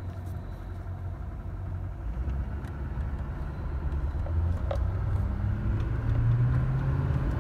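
A 2015 Chevy Silverado 3500's 6.6 L Duramax V8 turbodiesel, heard from inside the cab, revs up and grows steadily louder as the truck pulls away. It is held in first gear and does not upshift, because the transfer case speed sensor is unplugged.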